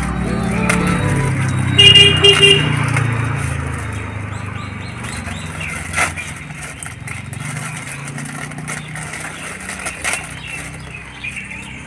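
A passing road vehicle sounds its horn in a few short beeps about two seconds in, over the rumble of its engine, which fades away over the next couple of seconds.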